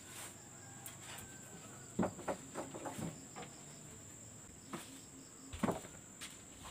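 Wooden boards knocking and clattering as they are picked up and moved, a quick run of knocks about two seconds in and a few more near the end. Insects drone steadily at a high pitch behind it.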